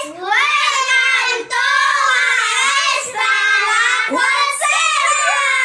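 A child singing in a high voice, a continuous melody with notes that bend in pitch and short breaks between phrases.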